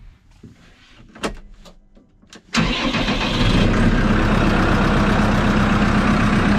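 Case IH Farmall 110C tractor's four-cylinder diesel engine starting up about two and a half seconds in, catching at once and settling into a steady idle. A few light clicks and knocks in the cab come before it.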